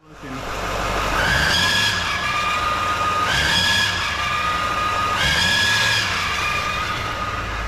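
Turbo diesel pickup engine revved three times, a turbo whistle sounding with each rev over the engine's rumble.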